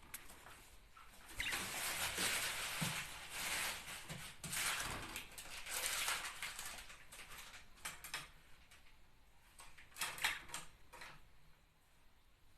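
Pet budgerigars chattering in raspy, scratchy bursts, with a few short sharp clicks near the end.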